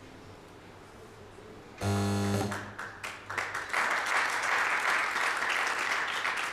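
A short, loud low musical note closes the music about two seconds in. About a second later an audience starts applauding, a dense patter of clapping that continues.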